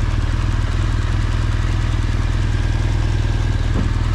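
BMW R1200GSA's flat-twin engine running steadily, heard through the helmet camera's own microphone.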